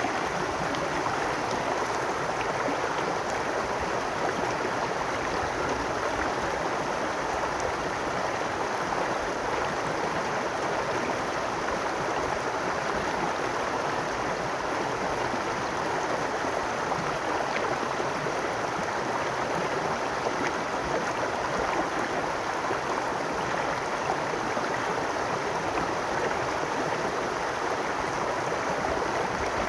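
A babbling brook: shallow water running and gurgling over stones in a steady, continuous rush.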